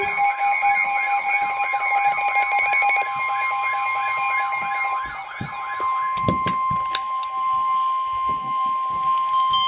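Emergency Alert System attention signal for a tornado warning: a loud, steady two-tone alarm. For the first five seconds or so a fast warbling tone, about three sweeps a second, is layered over it, and a few clicks come near the seven-second mark. The tones cut off sharply at the end.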